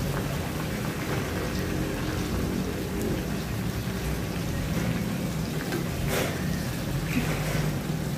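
Shrimp deep-frying in a wok of hot oil, a steady sizzling and bubbling, with a metal spatula stirring and one sharp clack on the wok about six seconds in.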